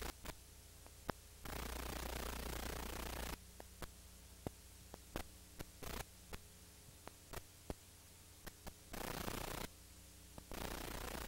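Hiss and low hum of an old analogue video recording, with no other sound in it. The hiss cuts out abruptly several times to a quieter hum, and scattered clicks fall in the quieter stretches.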